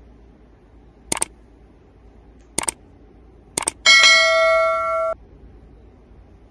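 Subscribe-button overlay sound effects: three quick double mouse clicks, then a bright notification bell ding that rings for about a second and cuts off.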